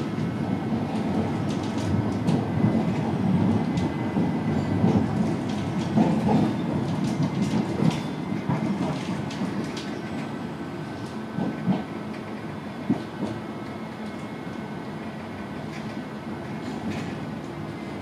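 Tram running, heard from inside the passenger car: a steady rumble of wheels on rails with scattered clicks and knocks and a faint steady high whine. The rumble grows quieter about halfway through.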